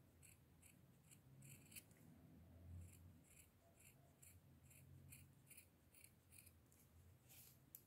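Scissors snipping around the edge of a felt cutout, a run of many short, faint snips at about three a second.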